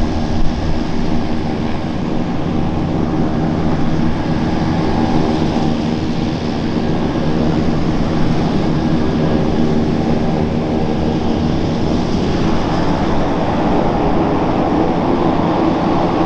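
Airplane engines running at high power: a loud, steady drone with several held tones, swelling slightly over the last few seconds.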